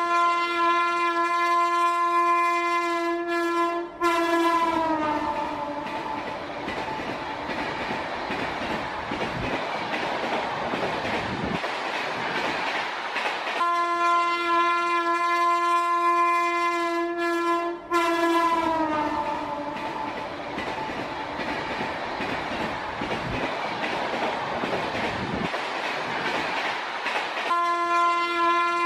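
A train horn sounds a steady chord for about four seconds, breaks briefly, then drops in pitch and fades as the train passes. The rumble and clatter of the train running on the track follow. The sequence repeats a second time, and the horn starts a third time near the end.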